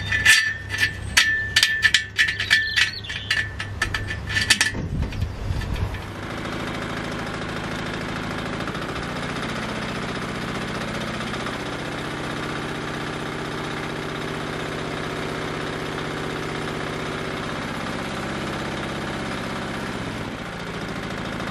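Rapid sharp clicking and rattling for the first few seconds, then the bandsaw mill's small engine running steadily.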